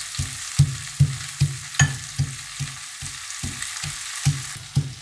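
A steel pestle pounding garlic cloves and green chillies in a steel mortar, with an even run of dull thuds at about two or three strikes a second. A steady frying sizzle runs behind it.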